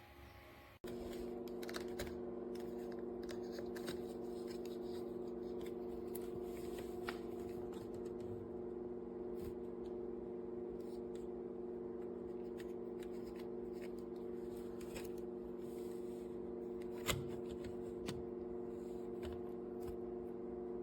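VIVOSUN AeroWave E6 clip fan running with a steady hum made of several fixed tones, starting abruptly about a second in, with scattered faint clicks and one sharper click late on. After two weeks of use the owner takes this for a faulty unit.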